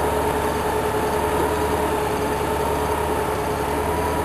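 Steady mechanical drone with a constant whine that holds one pitch throughout.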